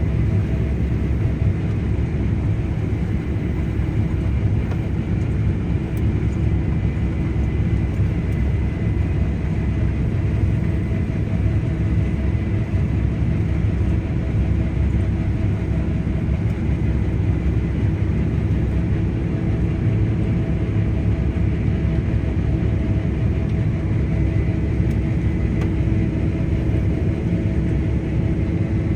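Case IH Axial-Flow 9250 combine harvester running steadily while harvesting wheat: a deep, even engine and machinery rumble with a constant hum and a faint high whine over it.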